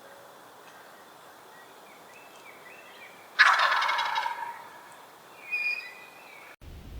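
A male turkey gobbling once: a loud, rapid rattling call about halfway through, lasting about a second. A shorter, higher call follows about two seconds later.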